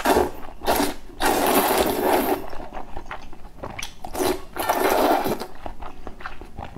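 Noodles being slurped from a bowl of spicy soup: several slurps, the longest lasting about a second, with short pauses for chewing between.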